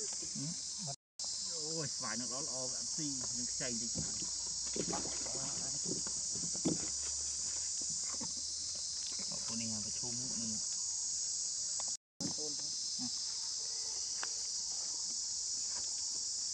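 Steady high-pitched insect chorus, with short scattered vocal sounds over it in the first part. The sound cuts out completely for a moment twice.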